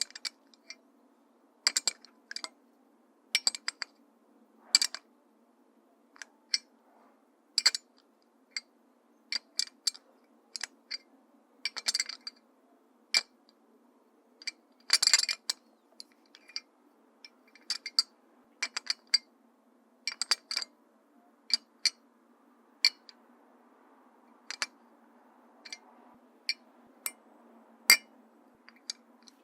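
Metal bottle opener being handled: irregular sharp metallic clicks and clinks, one after another with short gaps, including a quick cluster of clinks about halfway through.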